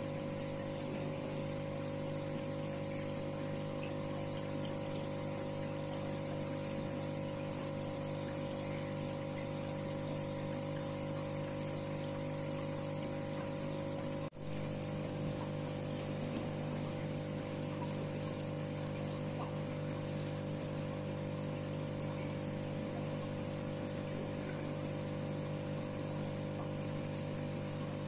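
Aquarium pump running steadily, a hum with water running through the tank. The sound cuts out for an instant about halfway through, then carries on.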